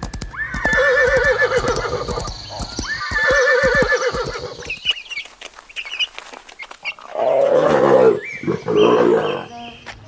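Horse whinnying twice, each a long wavering call. Then come short high peeps of young chicks, and two coarser animal calls near the end.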